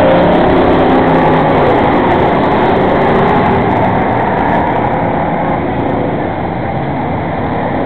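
Pack of enduro stock cars running at speed, engines loud as they pass close by, then easing off a little about five seconds in as the cars move away down the track.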